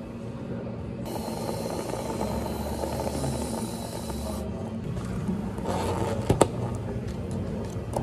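Whipped cream dispenser hissing for about three seconds as it sprays cream onto an iced drink, then two sharp plastic clicks as a dome lid is snapped onto a plastic cup, over a low steady hum.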